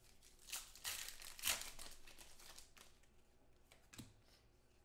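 Trading cards being handled: a faint crinkling rustle lasting about two seconds, loudest about a second and a half in, then a single light tap about four seconds in.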